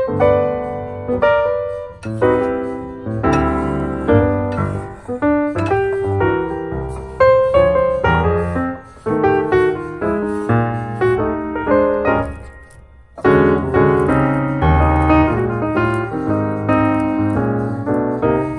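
Background piano music, a steady run of notes with a brief lull about two-thirds of the way through.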